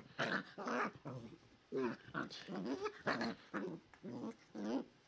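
8-week-old English Setter puppies growling and yipping in play-fighting: a quick run of short, high-pitched growls and yaps, about two or three a second.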